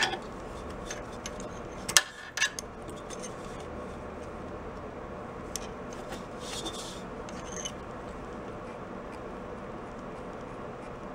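Small hand tools clicking against the valve tappet adjuster of a Honda CT70's engine, a few sharp metal clicks near the start and about two seconds in, then a brief metallic scrape as the valve clearance is set with a feeler gauge. Under it runs a steady low background hum.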